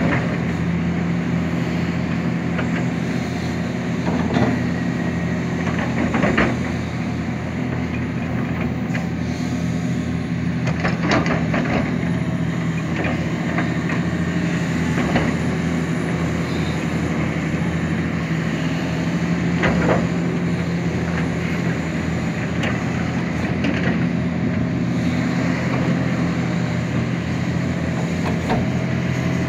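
Hitachi Zaxis 490 LCH excavator's diesel engine running steadily under work, with several sharp knocks scattered through it.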